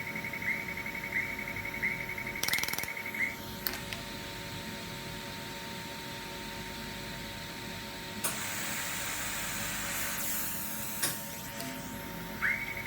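YAG laser welding machine running with a steady hum and short rising chirps about every two-thirds of a second. The chirps stop after about three seconds among a few clicks, a hiss follows in the later part, and the chirps resume near the end.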